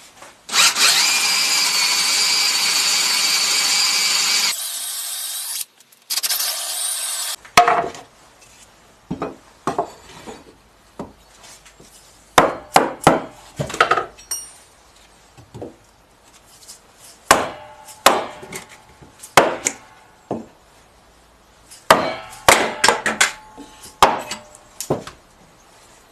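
Woodworking sounds: a power tool runs steadily for about four seconds and stops, a couple of shorter machine passes follow, and then comes a long run of short sharp knocks and scrapes of tools on wood, some in quick clusters.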